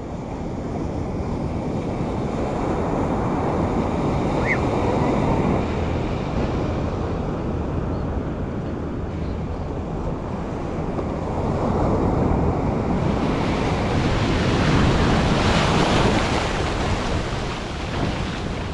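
Ocean surf breaking and washing up a sandy beach, with wind buffeting the microphone. The wash swells twice, the second time, about twelve seconds in, louder and hissier.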